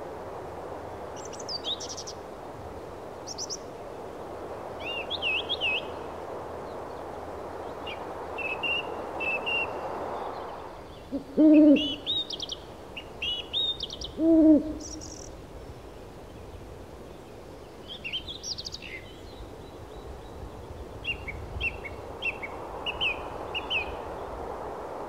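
An owl hooting twice about halfway through, roughly three seconds apart, with small birds chirping on and off over a steady background hiss.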